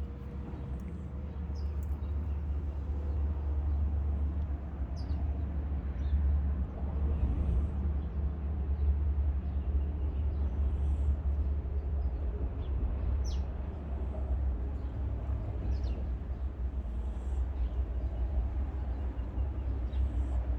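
Sleeping cat snoring: a steady low rumble, with a few faint, short high clicks scattered through it.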